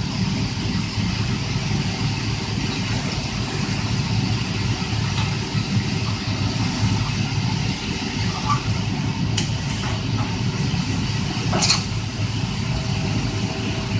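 Workshop machinery running steadily: a dense low hum with a constant mid-pitched tone, and two sharp clicks in the second half.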